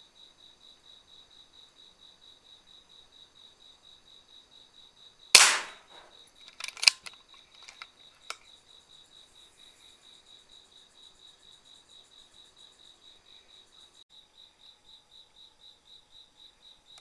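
A single PCP air rifle shot, one sharp crack with a short ringing tail about five seconds in, followed by a few smaller sharp clicks over the next three seconds. Crickets chirp steadily throughout in an even pulse of about three or four a second.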